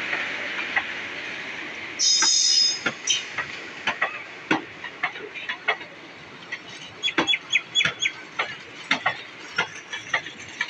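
Passenger train's coaches rolling past on the rails, the rolling noise fading away. About two seconds in there is a brief loud high screech, then a run of sharp, irregular clicks and clacks from the wheels on the track.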